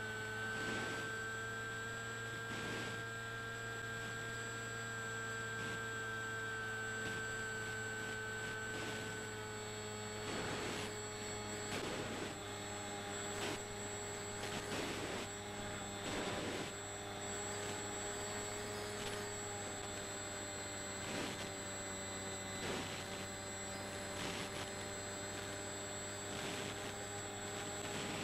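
A steady hum with a few held whining tones that drift slightly in pitch; the highest of the middle tones drops out about a third of the way through. Faint irregular rustles sit underneath.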